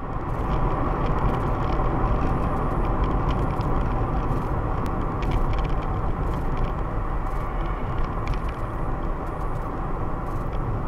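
Steady road and engine noise of a moving car heard inside its cabin: a low rumble of tyres on the road with a few faint ticks.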